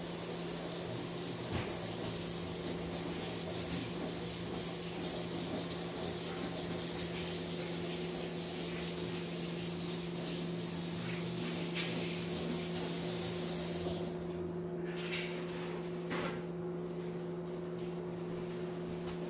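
Running tap water, a steady hiss, shut off about 14 seconds in, followed by a few faint knocks. A steady low electrical hum from the microwave cooking the meal runs underneath.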